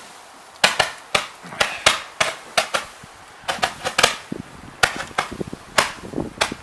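Consumer fireworks going off: a run of sharp pops and cracks, irregular, about three a second.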